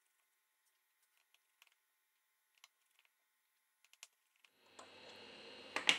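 Sparse faint clicks of a small precision screwdriver working the tiny screws of a phone's lower frame, with one sharper click near the end.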